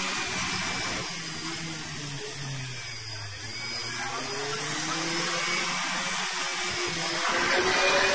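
Off-road 4x4's engine revving, its pitch rising and falling, getting louder near the end as the vehicle comes closer.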